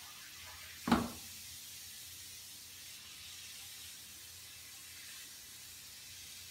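One short, sharp thump about a second in, over a steady faint hiss.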